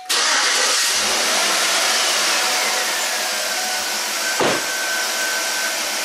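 A 2012 Chevy Tahoe's V8 starts up suddenly and runs at a steady idle. A whine falls in pitch over the first few seconds, then holds steady. It is running on a new spark plug in cylinder five, which cures the misfire the old cracked plug was causing.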